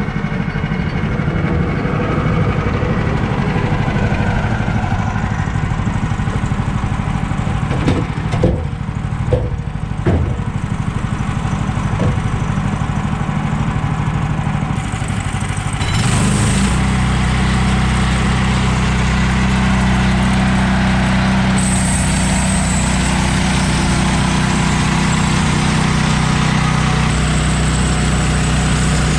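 Woodland Mills HM130 portable band sawmill's gas engine running steadily, with a few sharp knocks partway through. About halfway, the engine note steps up to a fuller, steadier run and holds there.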